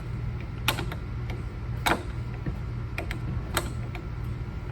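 Scattered sharp clicks and knocks of a hand screwdriver working a screw out of the sweeper's plastic and metal parts, about four of them, the loudest near two seconds in, over a steady low hum.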